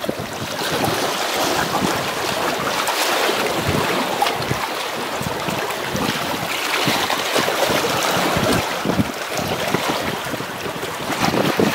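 Wind buffeting the microphone in uneven gusts, over the wash of sea waves against concrete breakwater blocks.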